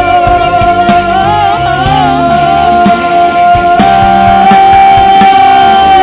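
Female singer holding one long sung note, stepping slightly higher about four seconds in, over a live rock band playing bass, drums and guitar.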